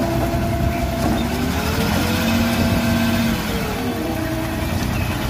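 Small dump truck's diesel engine running under load as the hydraulic hoist tips the bed to dump soil. Its pitch rises, holds and falls again.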